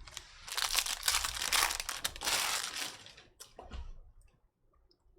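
A trading-card pack wrapper being torn open and crinkled for about two and a half seconds, followed by a few light clicks from handling the cards.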